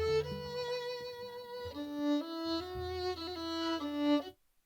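Violin playing a slow melody of held, smoothly joined notes, stepping from one pitch to the next. It cuts out suddenly near the end.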